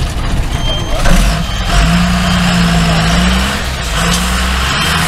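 Tata 715 army truck's Tata Cummins diesel engine working hard under load as the 4x4 truck climbs out of a muddy stream bed. The engine note climbs a little, dips briefly over halfway through, then steadies.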